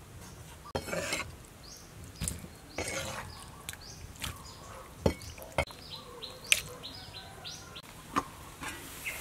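Irregular knocks and taps of a kitchen knife on a wooden cutting board as chicken liver and gizzards are cut and handled. Small birds chirp in the background.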